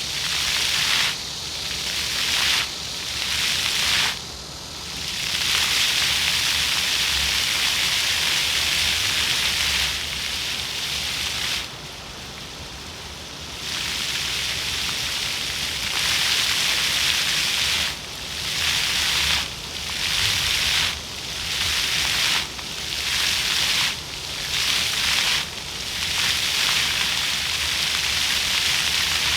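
Floor fountain jets spraying and splashing onto paving, a steady hiss of falling water. It drops away for about a second and a half near the middle, then dips briefly about every second and a half in the second half as the jets pulse on and off.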